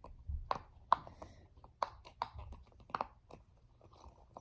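Silicone pop-it bag's bubbles being pressed by finger, a string of irregular soft popping clicks, about seven or eight.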